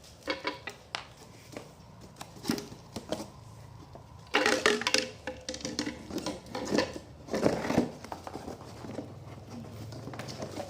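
Irregular clicks, knocks and rustling of hard objects being handled, with the loudest clatter about four seconds in and again near eight seconds.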